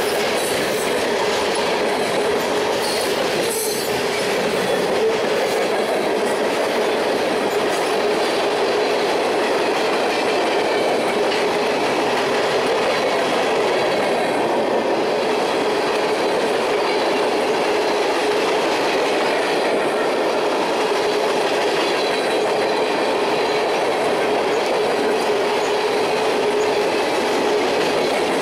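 Freight cars of a long mixed freight train rolling past close by: steady wheel-on-rail noise with clickety-clack over the rail joints and a constant squealing tone from the wheels.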